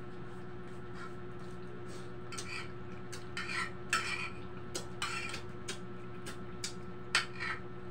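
Light clatter and scraping of food being picked from bowls and plates during a meal, in scattered short bursts, over the steady hum of an electric wall fan.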